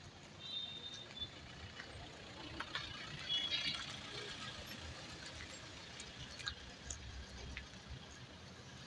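Faint outdoor road noise, with a car passing close by about three seconds in.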